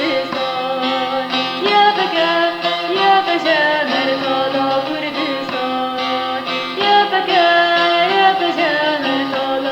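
Kurdish song music with an ornamented, Middle Eastern-style melody line over a steady accompaniment, played without sung words.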